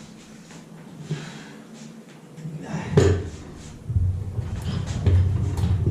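Knocks and clunks of objects being handled and moved about, with one loud knock about three seconds in, then a low rumble.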